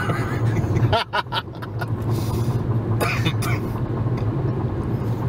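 Steady low drone of a car driving at highway speed, heard from inside the cabin: engine and tyre noise. A couple of short bursts of voice cut in about a second in and again about three seconds in.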